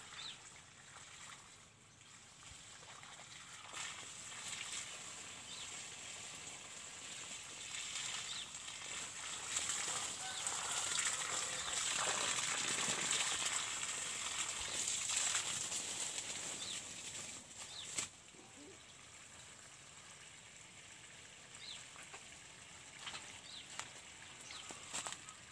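Water spraying from a garden hose over coffee plants and dry leaf litter, a steady hiss that builds up, is loudest through the middle and cuts off sharply about eighteen seconds in. A few short high chirps sound near the start and toward the end.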